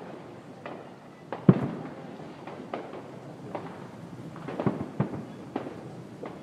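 Distant fireworks bursting: an irregular series of sharp bangs and crackles, the loudest about a second and a half in and another pair near the five-second mark, each trailing off in a short rumble.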